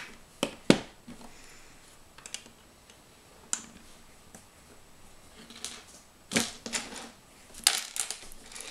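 Plastic Lego bricks clicking and clattering as they are handled, pressed onto a baseplate and picked from a loose pile on a table. Scattered sharp clicks: a few near the start, the loudest among them, a sparser middle stretch, and another cluster near the end.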